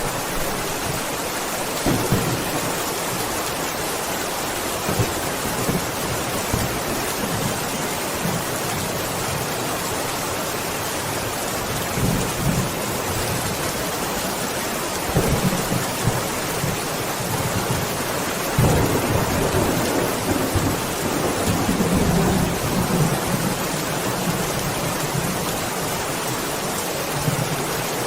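Steady rain with several low rolls of thunder rumbling in and out. The longest and loudest roll comes about two-thirds of the way through.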